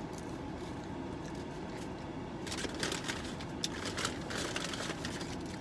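Eating sounds from a fast-food meal: a run of quick crackling rustles starting about two and a half seconds in, over a steady low hum.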